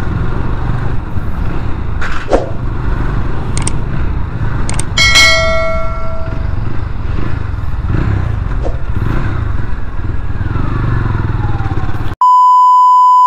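GPX Demon GR200RR motorcycle running steadily in slow traffic, with wind and road noise. About five seconds in, a bright bell-like chime rings out. Near the end the ride sound cuts off abruptly and is replaced by a steady electronic beep.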